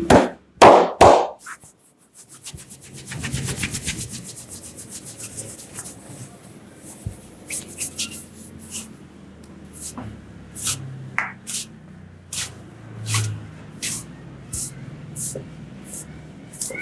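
Hand massage on head and back: three loud hand strikes, then a fast run of rapid tapping strokes, then scattered pats and rubbing of hands on skin and hair.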